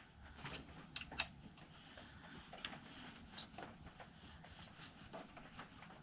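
Faint metal handling sounds from working the loosened front axle nut off a motorcycle: three light clicks in the first second or so, then quiet rubbing and scattered small ticks.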